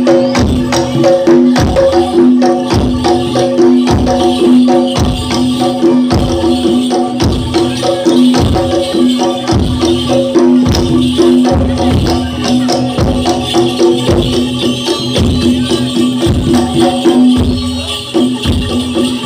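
Live Javanese gamelan music accompanying a kuda lumping (jaranan) dance: a steady drum beat about twice a second under sustained pitched tones, with constant jingling on top.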